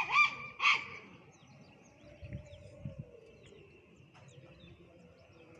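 Faint birds chirping against quiet rural background noise, with a voice briefly at the very start.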